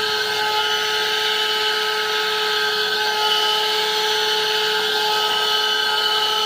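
12-volt handheld car vacuum cleaner running steadily: a constant motor whine over the rush of air being drawn through its brush nozzle.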